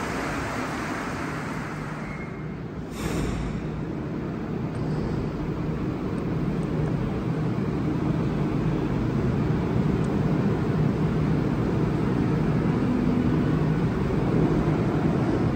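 Rubber-tyred Montreal Metro train at the platform, its steady running hum with low motor tones growing slowly louder as it starts to pull out.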